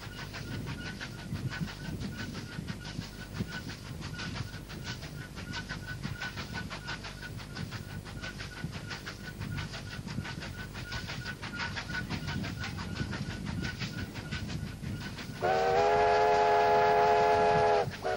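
Steam-hauled train running along the track, a steady clatter with a fast rhythm of clicks from the wheels and running gear. Near the end a multi-tone steam whistle blows one long blast of about two and a half seconds, then a second short blast begins, the whistle signal for the road crossing ahead.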